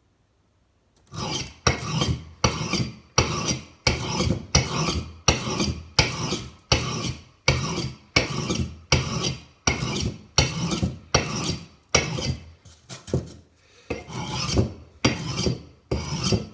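Axe blade being honed on an oiled sharpening stone: quick back-and-forth rasping strokes, about two a second. They start about a second in and ease off briefly near the end before picking up again.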